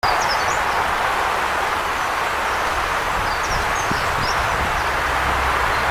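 River water rushing steadily, with a few small birds chirping briefly near the start and again about three and a half seconds in.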